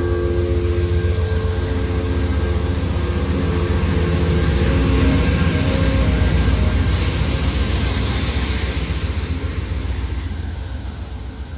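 Amtrak passenger train passing close by: a heavy low rumble with a rising hiss and rattle of wheels on rail that peaks about halfway through and eases off near the end. A chord of steady tones is there at the start and dies away over the first few seconds.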